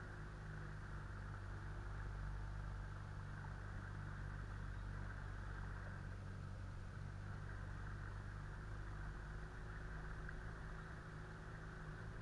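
Boat's outboard motor running steadily at a constant low speed, with a hiss over it.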